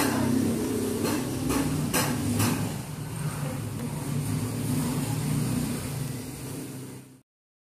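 Sharp knocks about twice a second for the first two or three seconds over a steady low hum, then the hum alone. Everything cuts off abruptly about seven seconds in.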